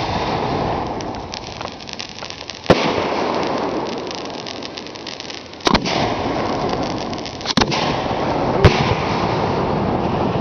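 Display fireworks shells going off: four sharp booms spaced a couple of seconds apart, over a continuous hiss and crackle of burning effects that is densest in the first two seconds.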